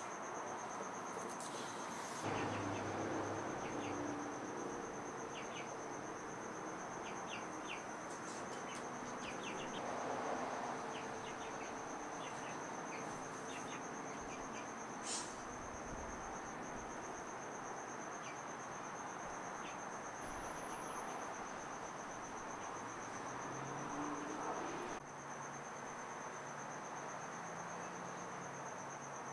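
Cricket trilling steadily, a continuous high, finely pulsing chirr, over a faint even background noise with scattered light clicks.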